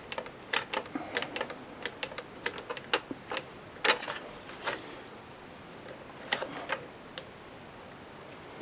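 Sharp plastic clicks and taps as a turntable's circuit board is worked loose from the plastic clips of its chassis. The clicks come quickly and irregularly for about the first five seconds, a short cluster follows about six seconds in, and then only a few faint ones.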